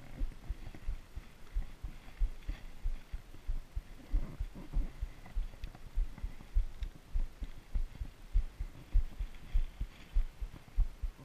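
Spinning reel being cranked on a lure retrieve, heard as steady low knocks about three a second.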